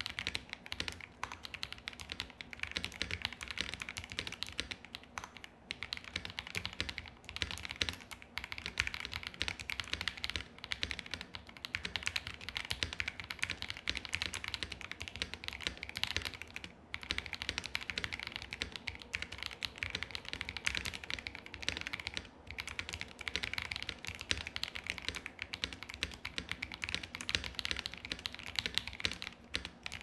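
Continuous fast typing on a KBD67 Lite R2 mechanical keyboard with a polycarbonate plate, lubed KTT Peach linear switches and Durock V2 stabilizers: a dense run of keystrokes with a few brief pauses.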